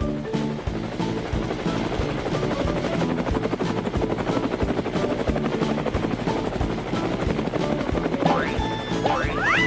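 Upbeat background music with a fast, steady pulse and a bouncing melody. Near the end come a few quick rising whistle-like glides.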